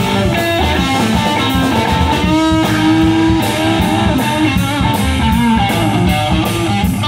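Live rock band with electric guitars played through amplifiers: a lead line of held, bending notes over a rhythm part. From about three seconds in, a steady beat of regular strokes comes in.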